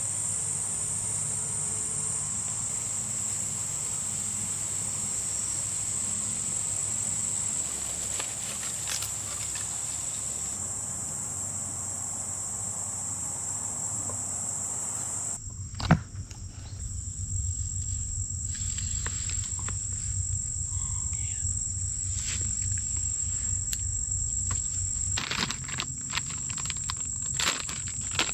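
Steady, high-pitched chorus of insects. The background changes abruptly about halfway through, with a single sharp click, and a few faint clicks follow later.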